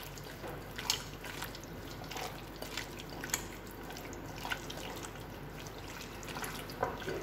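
Wet, irregular squishing and clicking of bare hands rubbing a lemon-juice masala marinade into raw prawns in a glass bowl.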